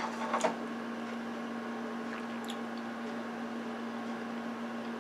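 Steady background hum with one fixed low tone, over even room noise, with a few faint clicks in the first half second and again about two seconds in.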